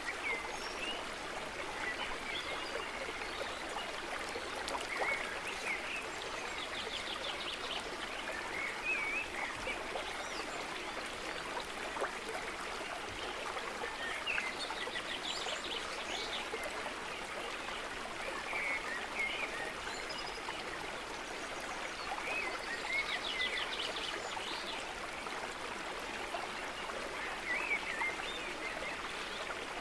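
Steady rush of running water, like a stream, with birds chirping now and then and giving a few quick trills.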